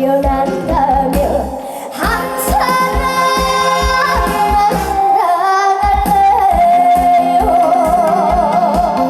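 A young female singer singing a trot song live over a backing track with a steady kick-drum beat, ending on a long held note with vibrato. The drum drops out briefly about five seconds in.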